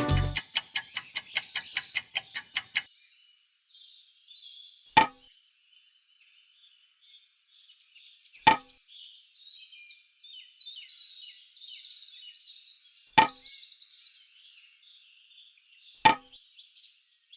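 Four sharp knocks a few seconds apart over faint birds chirping, opening with a quick run of ticks that fades out.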